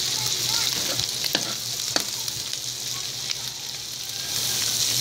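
Melted butter sizzling in a hot metal wok around browned ground pork. A metal ladle scrapes and taps against the pan a few times, sharpest about a second and a half and two seconds in. The sizzle eases a little midway and swells again near the end.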